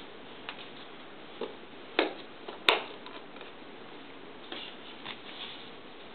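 Jigsaw puzzle pieces being handled, with scattered light taps and clicks; the two loudest come about two seconds in.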